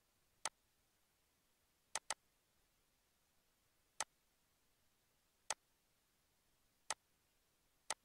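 Computer mouse button clicking: seven sharp single clicks a second or so apart, including a quick double click about two seconds in, over near silence.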